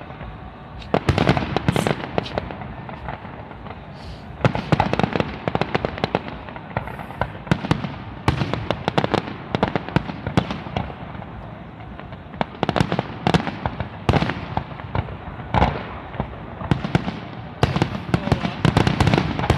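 Professional fireworks display: aerial shells bursting in volleys of sharp bangs and crackle, bunched in clusters every few seconds, with the densest volley near the end.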